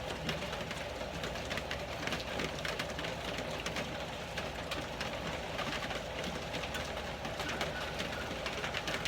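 Rain falling steadily: a constant crackle of small ticks that does not let up.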